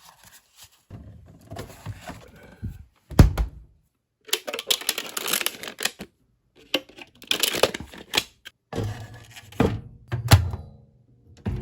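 Packaging being handled and torn open: bouts of rustling and tearing, with a loud knock about three seconds in and a few sharp clicks near the end.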